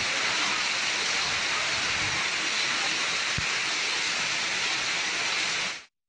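Hail and heavy rain pelting a concrete pavement during a hailstorm: a steady, dense hiss of falling hailstones and water that stops abruptly just before the end.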